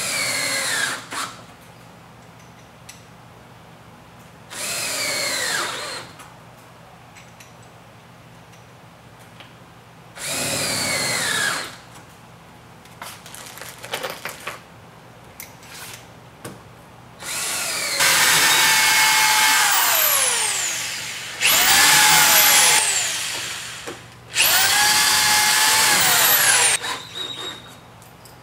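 Cordless drill-driver running in six bursts, driving screws into a rolling shutter's aluminium guide rails; the first three runs are short and the last three longer, each rising in pitch as the motor speeds up and falling as it slows. A few light clicks come between the runs.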